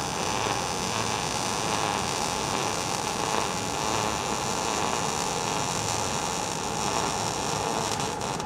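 MIG welding arc from an ESAB Rebel 235 running 0.035 wire with C25 shielding gas at 18.5 volts and 220 wire feed speed, a steady even sizzle at settings the welder judges just right for a soft bead. The arc cuts off just before the end.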